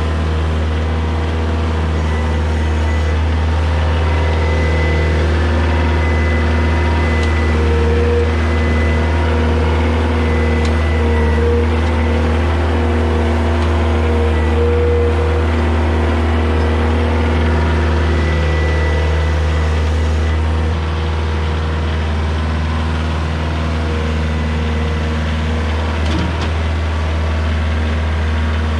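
Compact cab tractor's diesel engine running steadily while it works soil with its front-end loader, a strong low hum throughout. A thin high whine comes and goes above it.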